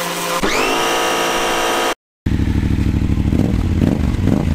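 Electric pressure washer running while spraying, its motor whine rising sharply to a higher steady pitch about half a second in. After a cut about two seconds in, a low, rapidly pulsing engine-like running sound.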